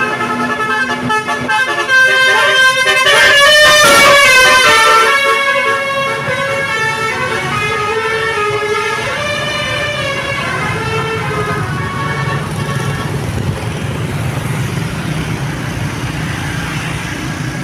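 A bus's Basuri telolet multi-tone horn playing a tune of stepped, changing notes for about ten seconds, loudest around three to five seconds in. It then dies away, leaving engine and traffic noise.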